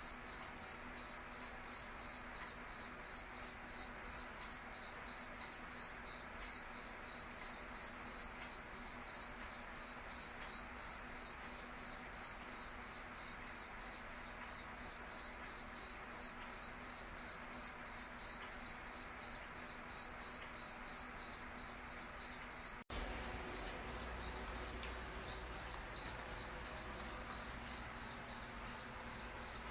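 Cricket chirping in a steady, even rhythm, about three high-pitched chirps a second on one unchanging pitch, with a momentary break about 23 seconds in.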